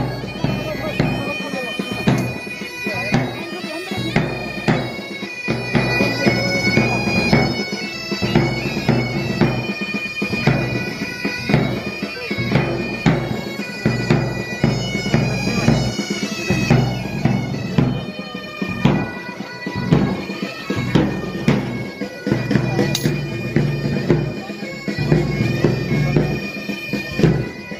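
Music played on a reedy wind instrument: a melody of held notes moving from pitch to pitch over a steady drone.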